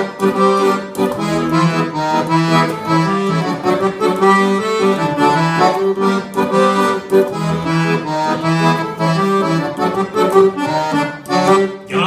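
Solo accordion playing an instrumental interlude with no singing: a quick, busy melody over rhythmic low bass notes and chords.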